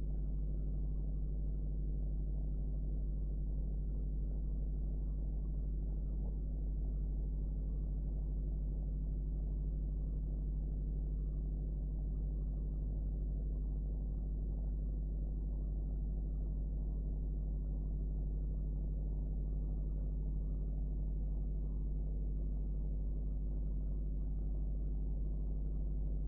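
Steady low hum with several held tones, unchanging throughout; no clicks or other distinct sounds stand out over it.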